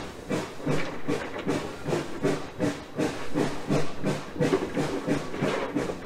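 A 1920 steam switcher locomotive working under steam, heard from its front pilot: steady, evenly spaced exhaust chuffs, about three a second, each with a hiss of steam.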